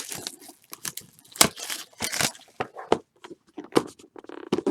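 Plastic wrapping of a trading card pack or box being torn open and crinkled, in a string of irregular sharp rips and crackles, the loudest at the very start.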